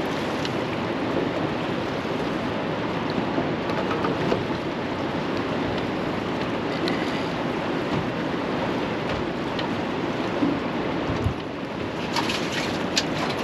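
Steady rushing wash of choppy river water around a small fishing boat, with a few light clicks and knocks near the end.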